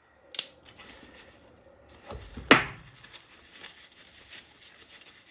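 Small hand tools and their packaging being handled on a bench: a sharp clack about half a second in, a louder knock about two and a half seconds in, and light rustling and clinks between.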